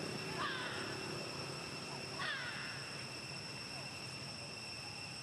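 Two short, harsh animal calls about two seconds apart, over a steady high-pitched insect drone.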